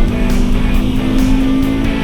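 Rock music with guitar over the onboard sound of a Scion FR-S's flat-four engine held at high revs, its pitch creeping slowly upward.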